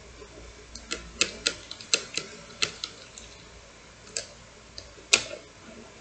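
Plastic LEGO parts of a LEGO puzzle box clicking and knocking as an orange piece is slid out of it: a quick, irregular run of sharp clicks, with one louder click about five seconds in.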